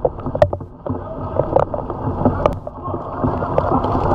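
Torrential rain heard through a rain-covered camera: a dense, muffled wash of water noise with many sharp, irregular taps of drops striking the camera.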